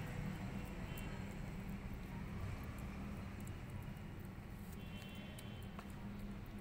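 Steady low background hum and rumble with faint scattered ticks.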